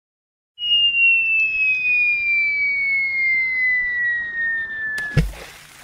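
Cartoon falling whistle: a single whistling tone gliding slowly down in pitch for about four and a half seconds, cut off by a thump and a splash.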